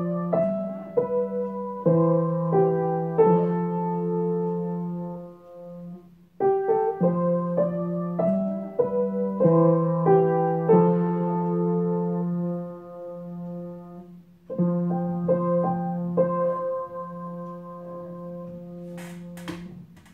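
Background piano music: gentle phrases of notes over low held tones, fading out near the end, with a few faint clicks.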